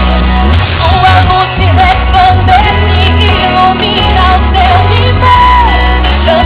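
A song with singing played very loud through a homemade sound rig of horn speakers, tweeter and subwoofer, driven by PowerOn and B-Buster amplifier modules running on PC power supplies. The bass is heavy and the top end is dull.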